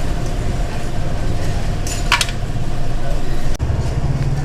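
Steady low rumble of workshop background noise, with one short sharp metallic clink about two seconds in, the kind made by tools and engine parts being handled during a motorcycle engine teardown.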